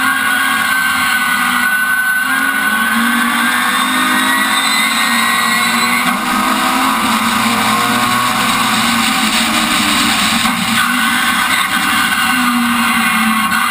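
Rallycross car's engine heard from on board, running hard under racing load, with one stretch where it pulls and climbs steadily in pitch for several seconds before dropping back, over heavy wind and road noise.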